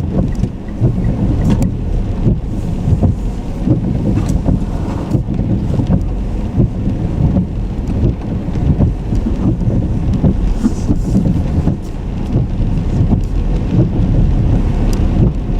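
Road and wind noise of a car driving: a loud, steady low rumble with scattered small clicks and knocks.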